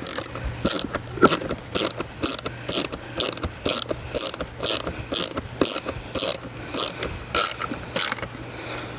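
Hand socket ratchet clicking in quick, regular strokes, about two a second, as a long fastener is driven into the wall.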